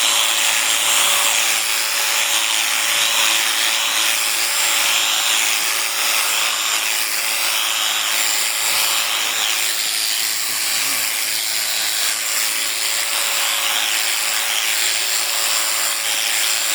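Electric sheep-shearing clippers running steadily through the fleece, a constant buzz with a hissing edge.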